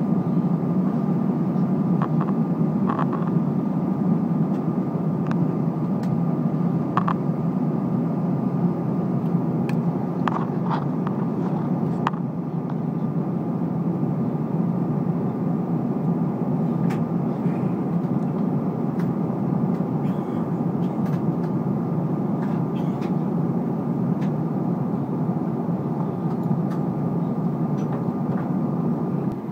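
Steady cabin roar of an Airbus A330-300 in flight at the start of its descent, heard at a window seat beside its Rolls-Royce Trent 700 engine: deep rushing air and engine noise with a thin steady whine over it. A few faint clicks come and go.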